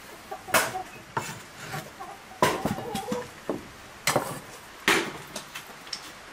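Kitchen utensils and cookware being handled during cooking: a run of irregular sharp knocks, the loudest about half a second, two and a half, four and five seconds in, with a brief ringing clink about two and a half seconds in.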